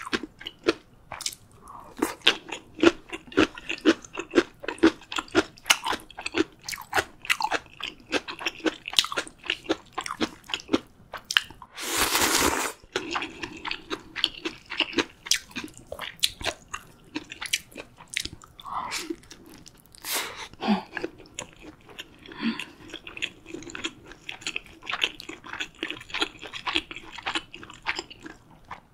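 Close-miked eating: steady wet chewing with crisp crunches throughout, and one loud slurp of ramyun noodles about twelve seconds in.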